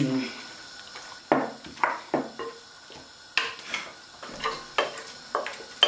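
Wooden spoon stirring seasoned raw turkey wings in a glass bowl: irregular knocks and scrapes of the spoon against the glass, roughly two a second, starting about a second in.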